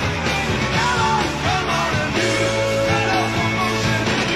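Live rock band playing: electric guitar, bass guitar and drums, with lines that bend in pitch over a steady low end.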